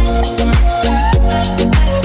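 Background music with a steady beat and deep bass hits that slide down in pitch about twice a second.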